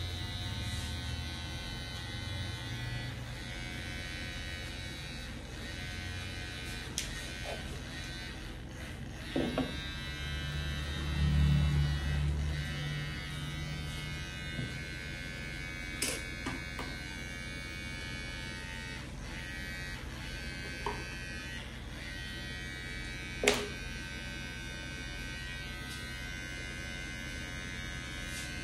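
Cordless electric hair clipper buzzing steadily as it cuts a fade on the back of the neck and around the ear. A louder low hum comes for a moment around the middle, and a few sharp clicks come at intervals.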